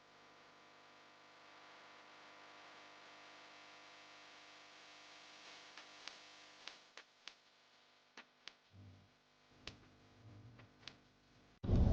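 Faint steady hum made of several even tones, with about ten light clicks scattered through the second half. A loud vehicle rumble cuts in suddenly right at the end.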